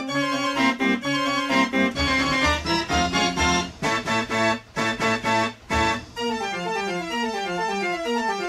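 Background organ music, with quick runs of notes in the second half.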